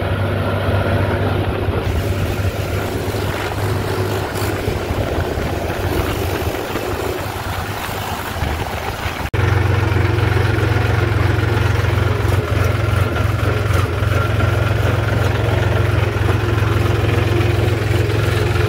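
Tractor's diesel engine running steadily as the tractor drives along. A little past halfway the sound breaks off for an instant and comes back with a louder low hum.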